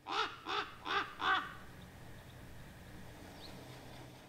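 A corvid caws four times in quick succession, as the sound effect under a raven logo. The caws fill the first second and a half, followed by a faint background hiss.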